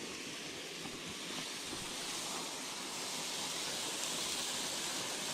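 A waterfall rushing: a steady hiss of falling water that grows slightly louder.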